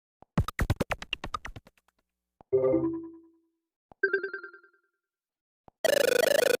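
A series of short Android 5.1 phone tones played one after another with pauses: a quick rattle of about a dozen clicks, then a short chime, another short chime, and a harsh buzzy tone that cuts off suddenly near the end.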